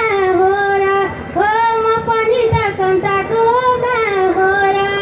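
A woman singing a Nepali dohori folk song into a microphone. She holds long notes that slide between pitches, with a short break about a second in.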